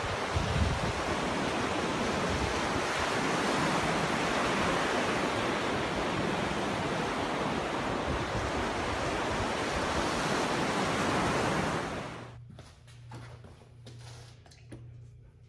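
Steady, loud rushing noise that cuts off suddenly about twelve seconds in, leaving a faint, low, pulsing hum.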